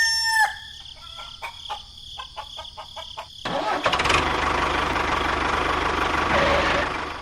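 A rooster's crow trails off, followed by a few seconds of light clicking. Then a small engine starts about three and a half seconds in and runs steadily, fading just before the end.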